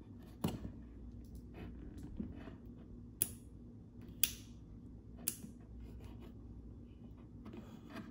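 Rotary dimmer knob on a PHLIZON 600 W LED grow light being turned by hand, giving a few sharp clicks, one about half a second in and three more about a second apart midway, as the knob clicks into its off position at the end of its travel. Faint rubbing of fingers on the knob between the clicks.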